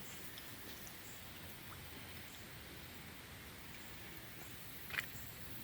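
Faint patter of light rain with scattered small ticks. One sharper click comes about five seconds in.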